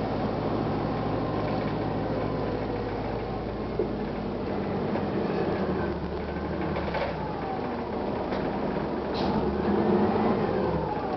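The 1999 Gillig Phantom bus's Detroit Diesel Series 50 diesel engine running steadily. Its note changes about halfway through, and a whine rises and falls near the end as the bus drives, with a few light clicks and knocks.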